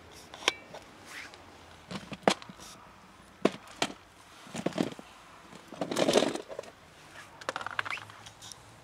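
Scattered clicks and knocks of a plastic food tray being handled, with dry cat food rattling into it in a louder burst about six seconds in and crackling shortly after.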